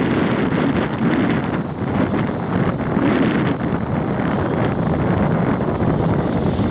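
Heavy wind buffeting the microphone aboard a Hurricane 5.9 sailing catamaran, in uneven gusts.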